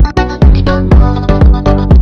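Electronic dance music with a steady kick-drum beat about twice a second under sustained synth chords.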